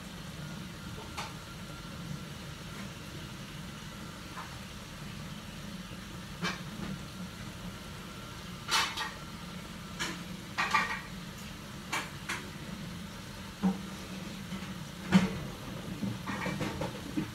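Tocino boiling in its marinade in an aluminium wok on a gas burner, the water being cooked off: a steady low burner rumble with scattered pops and spits from the bubbling liquid, the loudest about fifteen seconds in and more frequent near the end.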